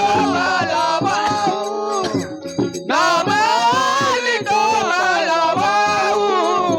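A woman singing a Marathi abhang, a devotional song to Vitthal, with instrumental accompaniment. The sung line breaks briefly about two and a half seconds in.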